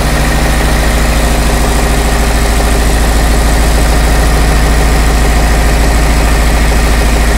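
Four-stroke diesel engine of a laboratory test rig running steadily at a constant speed, a loud, even low-pitched beat.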